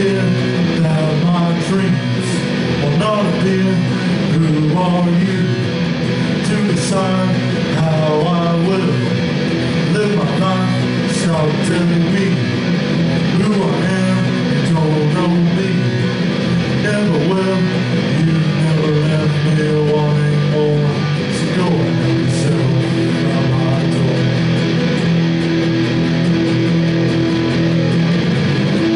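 Live rock band music: strummed electric guitar over a steady bass-range bed, with percussion and cymbal hits now and then.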